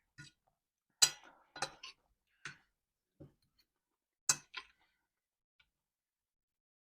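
Eating utensil clinking and scraping against a dish of salad: a string of short sharp clicks, the loudest about a second in and again past four seconds.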